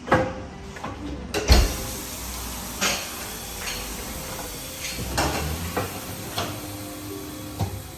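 Clanks and knocks of tyre-fitting work: about six sharp hits spread over several seconds, above a steady background hiss.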